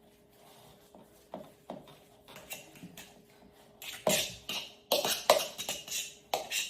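A utensil scraping and clinking against a bowl while breaking up crumbly white cheese, in irregular strokes that grow louder and quicker about four seconds in.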